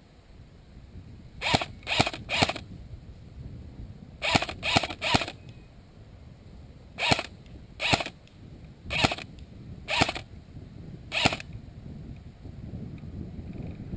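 Airsoft gun firing single shots: eleven sharp cracks, two quick bursts of three and then five single shots about a second apart.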